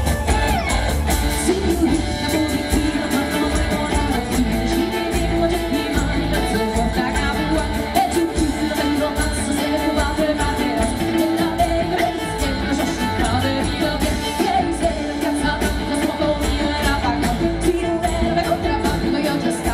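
Live pop-rock band playing over a PA: drum kit and timbales keeping a steady beat, electric guitars, and a woman singing lead.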